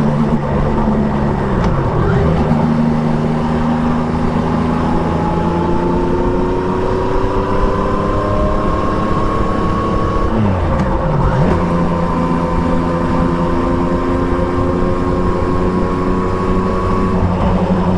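Triumph Trident 660's three-cylinder engine through an Akrapovic exhaust, pulling under steady throttle with its pitch climbing slowly. Its pitch dips and picks up again about two seconds in, and again more sharply about ten seconds in, as gears are changed.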